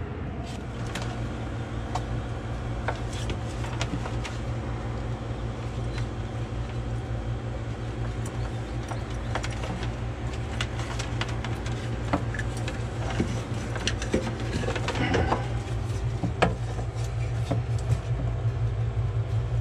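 A steady low mechanical hum with scattered clicks and knocks, the knocks busiest about two thirds of the way through.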